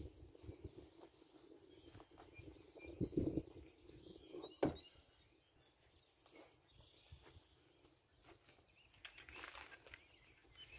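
Quiet open-air ambience with faint distant bird calls, broken by two short thumps about three and four and a half seconds in.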